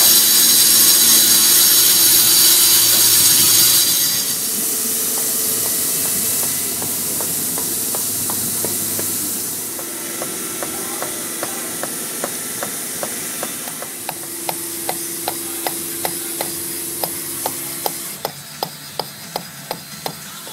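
CNC stone saw cutting Yorkstone: a loud high whine over hiss for the first few seconds, then a steadier hiss. From about halfway through, regular sharp clicks come about two a second, quickening near the end.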